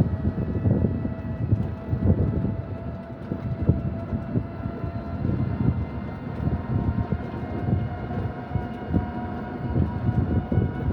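A vehicle in motion: a continuous low rumble with irregular knocks, and a faint steady whine of several tones over it.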